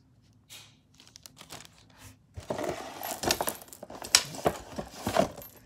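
Crinkling of clear plastic craft packaging being handled, with many small sharp clicks and knocks of objects among it. It starts about two and a half seconds in after a quiet moment and goes on in a busy patter almost to the end.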